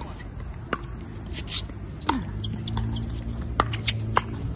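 Pickleball paddles hitting a hard plastic pickleball back and forth in a rally, a series of sharp pops that come closer together near the end.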